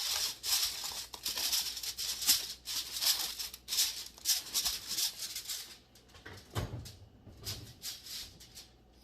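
Aluminium foil crinkling and rustling as it is pressed and crimped over a casserole dish for about six seconds, followed by a low thud.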